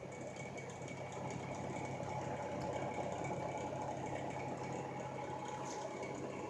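Steady low hum with an even background hiss: room tone with a constant machine or electrical drone.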